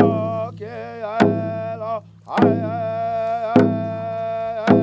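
Round dance song: voices singing over a hand drum struck steadily about once a second, four beats in all.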